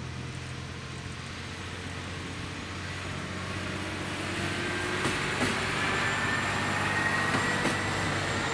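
ET122 diesel railcar pulling into a station and passing close by, its running noise growing louder through the second half. Several sharp wheel clicks sound over the rail joints in the middle and near the end, under a thin high squeal as the train slows to stop.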